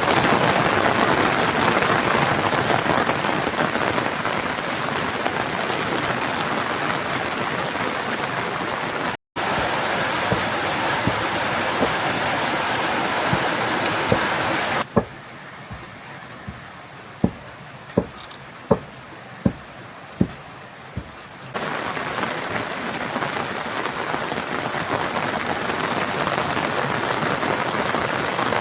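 Steady heavy rain falling. About fifteen seconds in it drops to a softer patter for several seconds, with a series of loud single drips, then the heavy rain returns; there is a brief cut to silence about nine seconds in.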